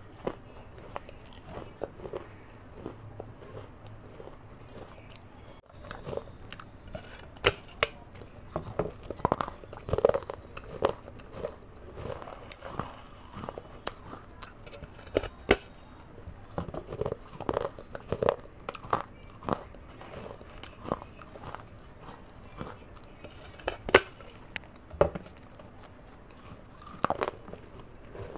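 Close-miked biting and chewing of a baked clay (terracotta) pot: irregular sharp crunches as pieces are bitten off the broken rim and ground between the teeth.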